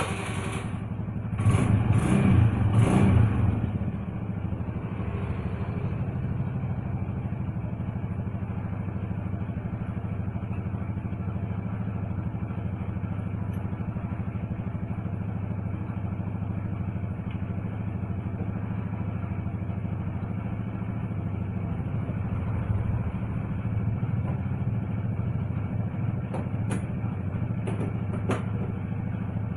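Vehicle engine that has just caught is revved briefly three times, then settles into a steady idle, running on freshly fitted spark plugs. A few light clicks come near the end.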